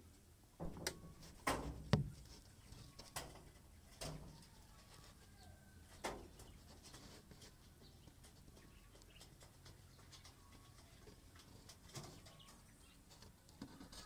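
Caged doves and small birds calling faintly, with short soft calls scattered through. Several sharp knocks and clicks are louder than the birds, most of them in the first few seconds.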